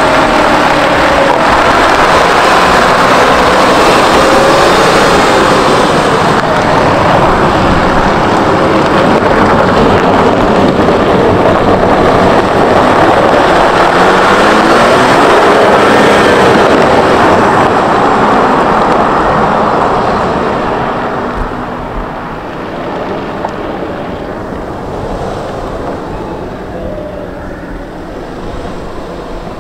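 Volkswagen Touareg diesel SUV driving around a dirt lot: engine and tyre noise, with wind on the microphone. It is loud for about the first twenty seconds, then quieter as the SUV moves farther off.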